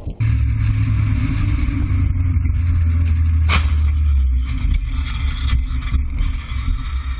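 Steady low rumble of a car being driven, engine and road noise picked up by a dashcam inside the car, with a single sharp click about three and a half seconds in.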